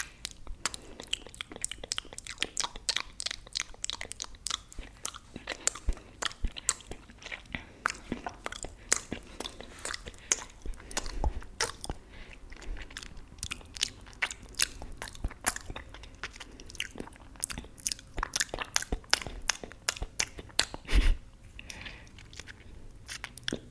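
Wet mouth sounds close on the microphone: fingers being sucked and licked, with many irregular smacks, pops and clicks of lips and tongue. A few louder thumps come near the middle and near the end.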